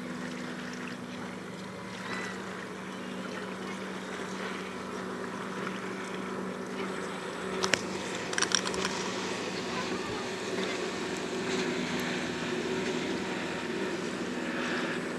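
Boat engine running steadily with a low hum, over wind and water noise. A few short, sharp sounds come in quick succession a little past halfway.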